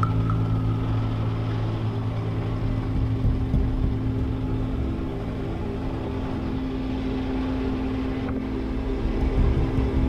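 Motorcycle engine running steadily as the bike rides a gravel dirt track, with an uneven low rumble underneath.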